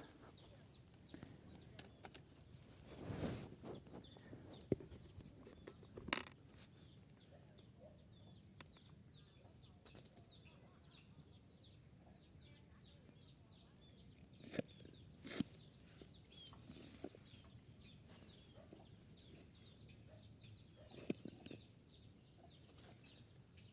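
Rural outdoor ambience: birds chirping over and over, with a steady high insect drone and a few sharp knocks.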